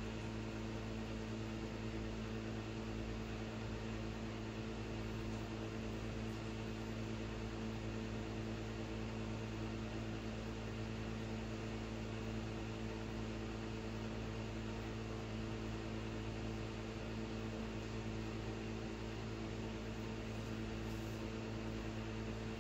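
Steady electrical hum over a faint hiss, unchanging throughout.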